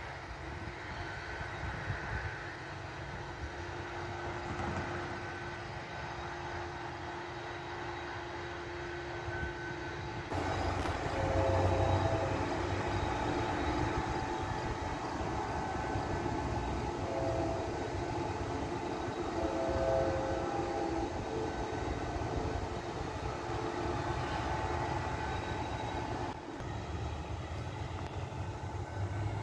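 Distant Union Pacific manifest freight train: a steady low rumble that gets louder after about ten seconds, with short higher tones coming and going.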